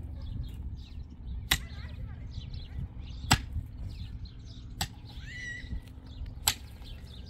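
Pickaxe striking the ground four times, about one blow every second and a half, digging a hole. Birds chirp faintly in the background.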